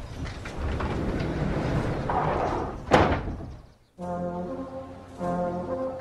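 A dense, noisy rumble with one loud sudden rush about three seconds in, which fades out just before four seconds. After that, slow brass music with long held notes.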